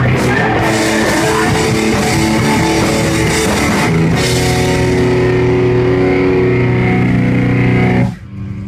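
Live rock band playing loud electric guitar, bass and drums; the song stops suddenly about eight seconds in, leaving a faint ringing chord.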